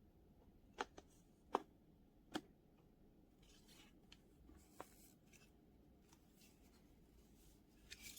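A few light clicks and taps over near silence, with a faint rustle midway, as of small plastic parts being handled; no motor running.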